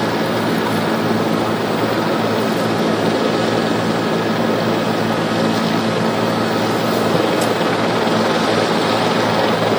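Steady loud aircraft noise: an even rushing roar with a constant low hum underneath.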